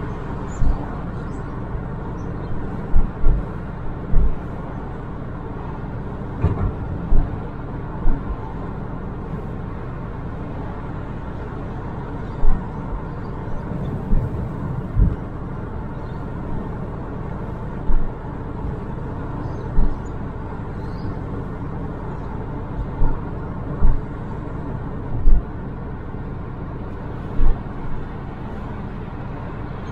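Steady road and engine rumble of a car driving along a suburban road, broken by short loud low thumps at irregular intervals of a second or two.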